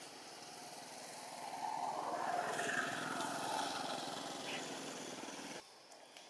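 A motor vehicle passing, its engine sound swelling over a couple of seconds and then fading, cut off abruptly near the end.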